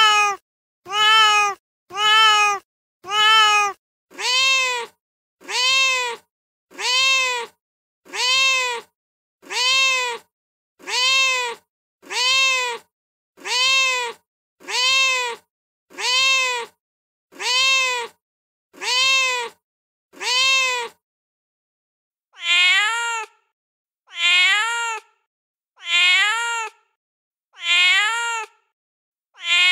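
Recorded cat meows from a phone soundboard app: one short meow clip looped about once a second, with dead silence between repeats. About four seconds in it switches to a different meow clip. After a pause of about a second and a half, about two-thirds of the way through, a third meow clip loops in the same way.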